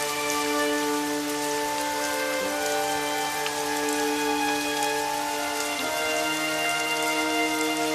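Steady rain, an even patter of drops, under soft background music of long held chords that shift about two and a half seconds in and again near six seconds.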